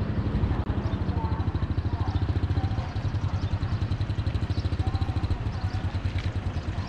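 Small motorcycle engine idling close by, a steady low running sound with a fast, even pulse.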